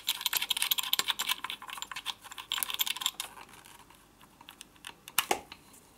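Rapid clicking and rattling of a round multi-pin cable plug with a knurled metal screw collar being fitted and twisted onto its socket on a plastic control unit. The clicks are dense for about three seconds, then thin out to a few, with a couple more near the end.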